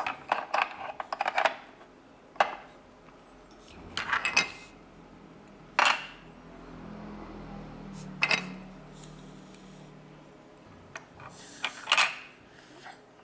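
Hard plastic toy cars and a truck clacking as they are set down and pushed into place on a plastic sliding-block puzzle board, in short bursts of clicks every couple of seconds.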